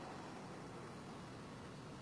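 Faint, steady background hiss with a low rumble underneath.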